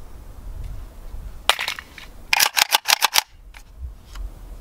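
Sharp metallic clicks from handling an unloaded Century Arms NAK9-X 9mm AK pistol: two clicks about one and a half seconds in, then a quick run of about seven in under a second.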